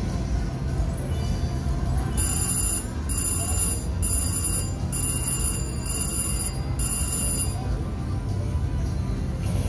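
Hot Red Ruby 2 slot machine's win bell rings six times in a row, each ring well under a second, as the machine pays out a win. A steady low casino din runs underneath.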